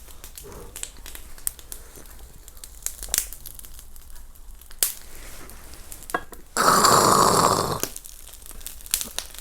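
Scattered small clicks and knocks, then about seven seconds in a loud, rasping breath of a little over a second: a drinker's throaty exhale after a shot of soju.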